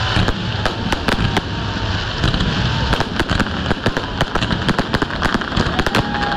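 Aerial fireworks bursting overhead: many sharp cracks and pops in quick, irregular succession as the shells' stars break and crackle.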